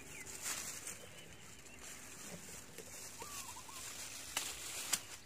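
Faint rustling of leaves and stems as plants are handled and pushed aside, with a few sharper rustles near the end. A bird chirps briefly in the background, about three seconds in.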